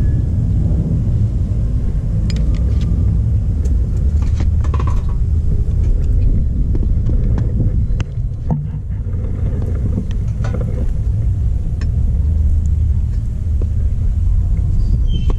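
Wind rumbling on the microphone, with scattered light clicks and knocks of bowls and utensils being handled, and near the end a cleaver tapping on a wooden chopping block.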